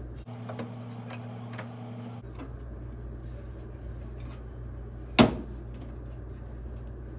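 Small clicks and knocks of a microwave's plastic door-switch assembly being handled and refitted, with one sharp, loud click about five seconds in, over a steady low hum; a steady tone sounds for about two seconds near the start.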